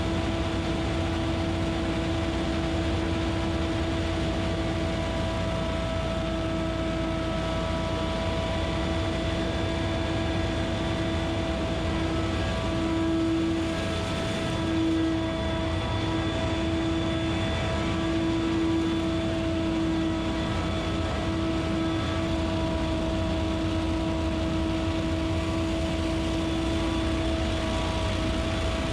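Scag Windstorm stand-on leaf blower running at a steady speed: a constant engine-and-fan drone with a steady pitched hum over a rush of air, dipping and swelling slightly about halfway through.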